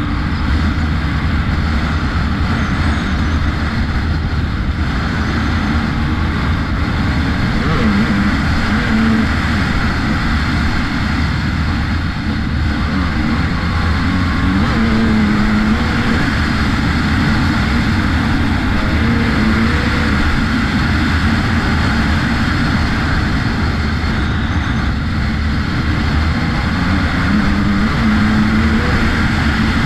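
Enduro dirt bike engine running under way along a gravel track, steady with small rises and falls in pitch as the throttle changes, over a heavy low rumble of wind on the bike-mounted camera.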